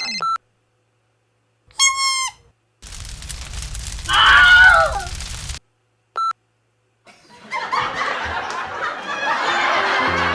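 Short cut-together sound effects: a brief beep, a short squeaky pitched sound, then a burst of noise with a person screaming, another brief beep, and a rising wash of noise near the end.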